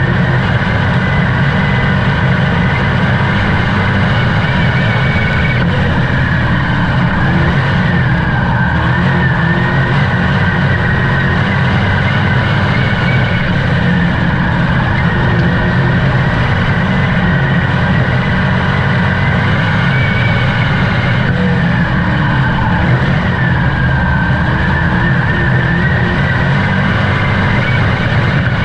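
Dirt-track race car engine running hard at racing speed, its pitch rising and falling over and over as the throttle comes on and off.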